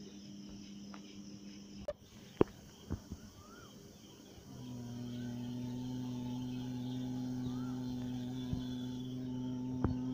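Outdoor background of insects with a few short bird chirps. A few sharp clicks come about two to three seconds in, and about halfway through a low steady humming drone starts and holds.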